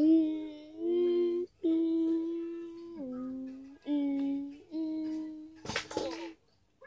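A voice humming a tune in long held notes, some sliding up or down between pitches, with short breaks between phrases. A brief burst of noise comes near the end.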